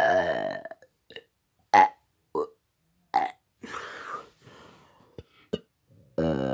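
A man burping repeatedly: a long burp at the start that falls in pitch, three or four short burps, then another long burp beginning near the end.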